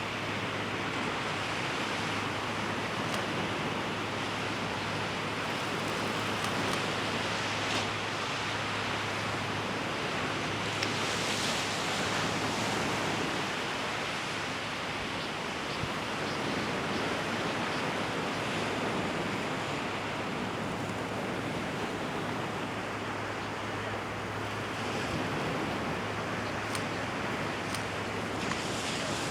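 Steady rushing noise of surf and wind, with a low steady hum underneath and a few faint ticks.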